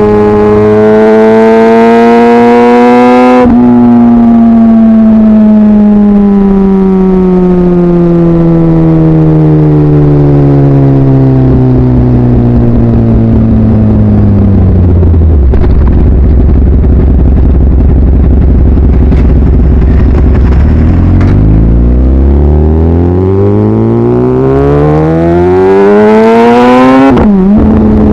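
Kawasaki ZX-10R inline-four engine under way: revs rise briefly, then the throttle closes and the revs slide down for about ten seconds to a steady idle. After about six seconds of idling the revs climb again under acceleration, with a quick gear change near the end.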